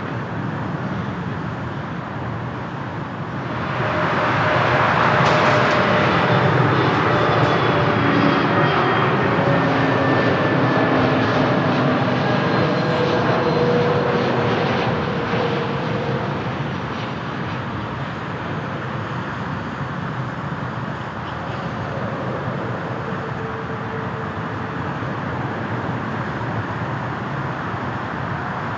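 Jet airliner passing close by: engine noise swells about four seconds in, with engine whine tones sliding down in pitch as it goes past, then fades to a steady distant rumble.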